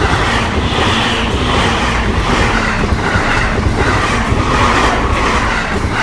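Electric limited express train passing at speed over a steel girder bridge: a loud, steady rush of wheels rumbling and clattering on the rails, which drops away as the train clears.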